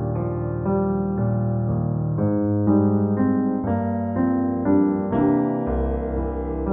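Background piano music: a melody of single notes over chords, with a deep bass note coming in near the end.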